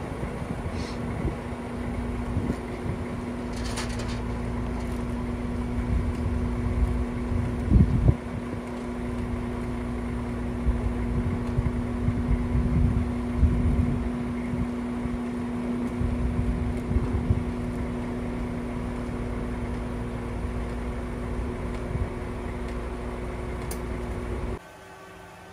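Forklift engine running steadily as the forklift climbs loading ramps onto a flatbed truck, with a loud clunk about eight seconds in. The sound cuts off near the end.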